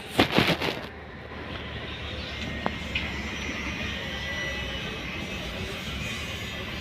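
A quick clatter of sharp knocks, then the steady running noise of a Toyota Avanza engine and tyres as the car is driven on a test drive after new front lower-arm bushings were fitted.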